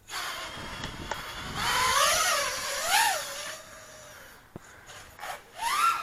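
Small quadcopter drone's motors and propellers whining, the pitch rising and falling as the throttle changes, then dropping away after about three and a half seconds as it climbs. A short rising whine comes just before the end.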